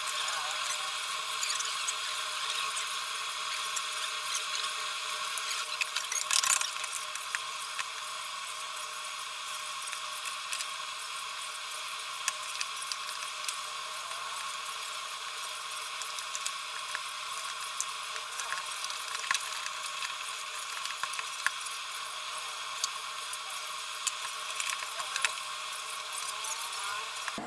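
Small high-speed handheld rotary tool running steadily with a high-pitched whine, working on a plastic tail-light housing, with a louder gritty burst about six seconds in and scattered light clicks.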